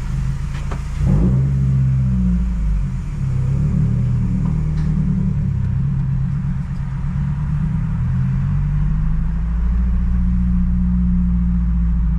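2023 Subaru WRX's turbocharged 2.4-litre flat-four engine driving, heard from inside the cabin. The engine note rises and falls about a second in, then settles into a steady low drone.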